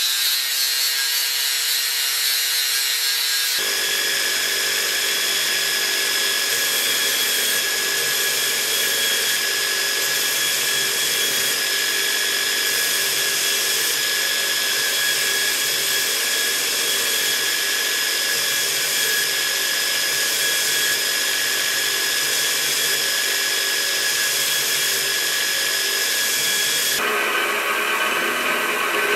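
An angle grinder grinding a metal piece clamped in a vise. About three and a half seconds in it cuts to a belt grinder running with a steady whine, and near the end to a belt grinder grinding the metal of a knife handle.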